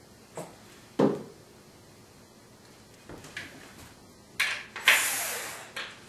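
Handling noises from wooden loveseat parts: a sharp knock about a second in, a few light clicks, then a rustling scrape lasting about a second near the end.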